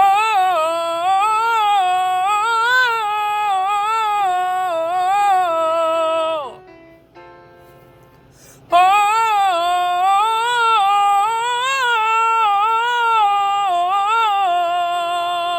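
A singer holding an open 'ah' vowel through two long vocal-exercise phrases of about six seconds each, the pitch stepping up and down in small steps and sliding down at the end of each phrase, with a short pause between them.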